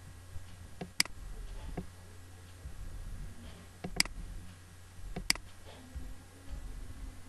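Computer mouse clicking: three sharp single clicks, about a second in and twice more around four and five seconds, with a few fainter ticks between, over a steady low hum.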